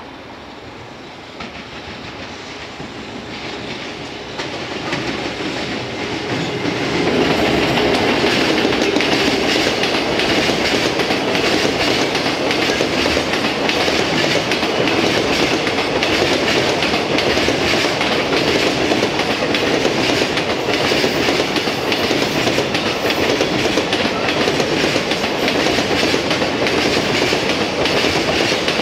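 Container freight train hauled by a JR Freight EF210 electric locomotive, growing louder over the first several seconds as it approaches and passes. A long, steady run of container wagons follows, their wheels clicking over the rail joints.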